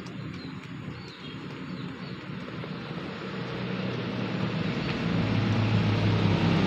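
A dog crunching and lapping kibble and chopped carrot from a stainless steel bowl, under a low rumbling hum that grows steadily louder over the last few seconds.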